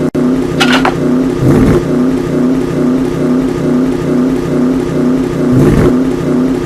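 Car engine running with a steady drone that pulses about twice a second, with short bursts of noise about half a second and a second and a half in and again near the end.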